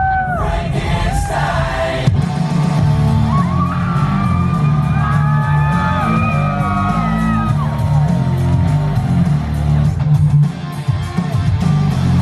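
Loud music with a heavy, steady bass beat and sung vocals.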